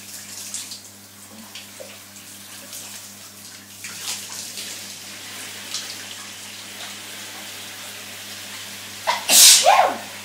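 Shower water running steadily, with a woman's single loud sneeze about nine seconds in.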